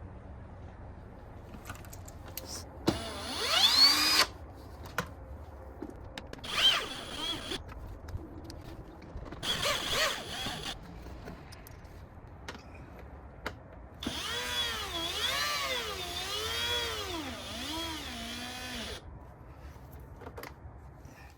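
Power drill running in short bursts, its pitch rising as it speeds up, then a longer run of about five seconds in which the speed rises and falls several times.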